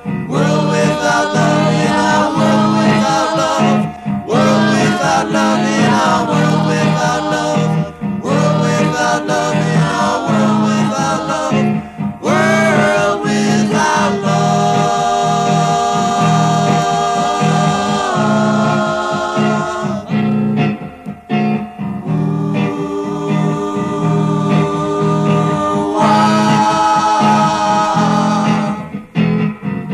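Rock song: a sung vocal over guitars and bass, with long held notes about halfway through and a softer passage in the later part.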